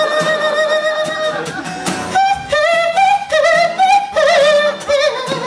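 Man singing live with his own strummed acoustic guitar: a long high held note, then, about two seconds in, a wordless run of sliding, wavering notes.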